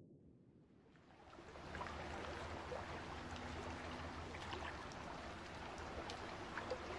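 Low muffled underwater rumble giving way about a second in to gentle sea water lapping and trickling, with small scattered drips and splashes.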